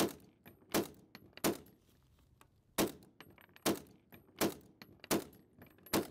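Howell Automatic Rifle, a gas-operated semi-automatic conversion of the .303 Lee-Enfield, firing about eight shots in steady succession, mostly under a second apart, with a slightly longer pause in the middle.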